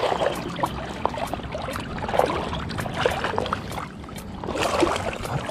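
Shallow seawater sloshing and splashing in uneven surges roughly a second apart.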